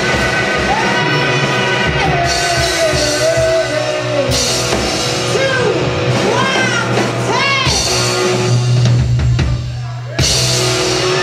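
Live rock band playing loud: a woman's lead vocal sliding and wavering over electric guitar and drum kit. About ten seconds in the sound drops briefly, then the full band crashes back in.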